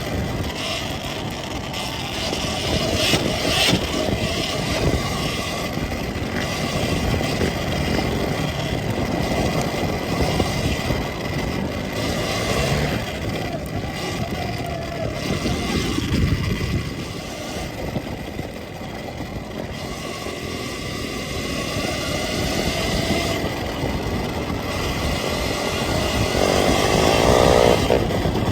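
Surron Ultra Bee electric dirt bike being ridden over a loose rocky trail: a continuous rush of noise that rises and falls without a break.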